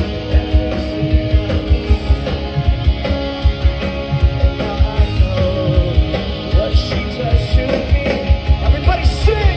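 Live rock band playing loud with drums and guitar, driven by a steady kick drum beat.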